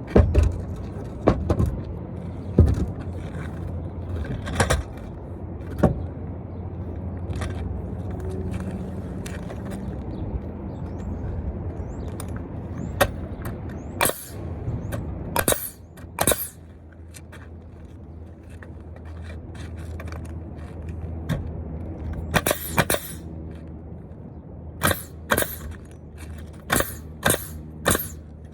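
Nailing into wood framing: a series of sharp, irregular impacts, several in quick succession near the end, over a steady low hum.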